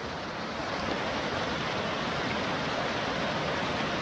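Shallow river rushing over stones and through riffles: a steady rush of flowing water that grows slightly louder in the first second.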